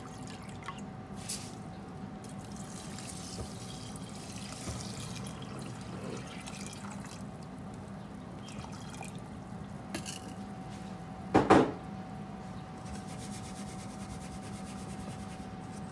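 Water poured from a plastic pitcher into the inner pot of an electric pressure cooker, over soybeans and sugar. About eleven seconds in there is one loud knock, and a steady low hum sits underneath.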